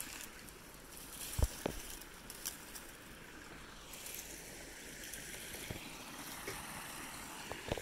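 Faint outdoor ambience: the steady hiss of a flowing river or stream, broken by a sharp thump about a second and a half in and a few small knocks.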